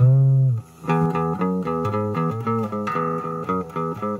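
Small electric guitar played through a homemade TDA2030 kit amplifier into a Koss speaker. A held note sags slightly in pitch as it ends, there is a brief break, then a run of single picked notes.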